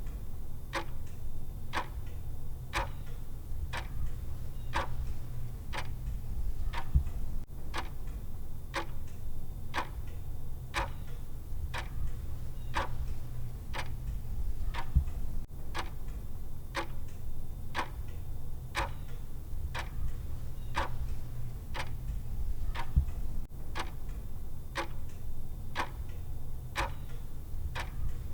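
Clock tick sound of a countdown timer, ticking evenly about twice a second, with a low steady hum underneath.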